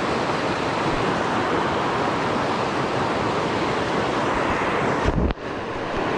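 Steady rushing of river rapids, white water pouring over rocks. About five seconds in, a brief low thump on the microphone, and the rush dips for a moment.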